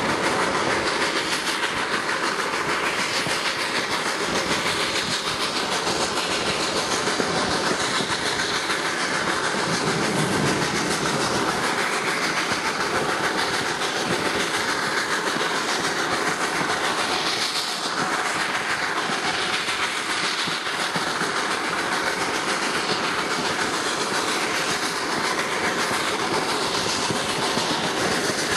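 Steam-hauled excursion train running, heard from an open window of one of its passenger coaches: a steady rumble and clatter of wheels over the rails.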